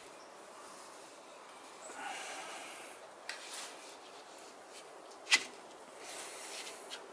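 Faint rubbing and handling as hands work a plastic seal-installation sleeve over the crankshaft's rear flange, with close breathing. There is a sharp click about five seconds in and a smaller one a couple of seconds before it.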